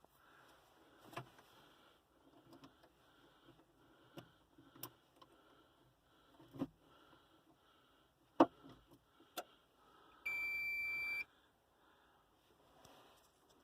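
The excavator's cab warning buzzer gives one steady high beep, about a second long, some ten seconds in, as the key is switched on before starting. Before it come scattered light clicks and knocks of handling inside the cab.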